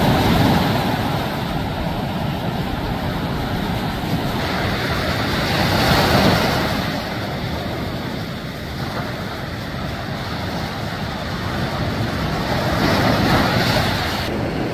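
Ocean surf breaking and washing up the beach, the rush swelling and easing with each wave, about every six or seven seconds, with wind buffeting the microphone.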